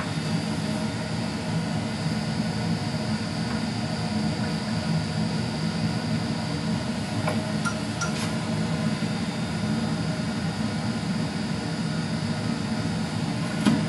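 Steady rushing background noise with a low hum, with a couple of faint clicks about seven and eight seconds in.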